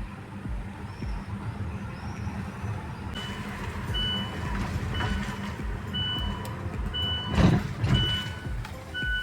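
A vehicle's engine rumbling steadily, joined about three seconds in by short electronic warning beeps repeating roughly once a second. A loud thud about three quarters of the way through.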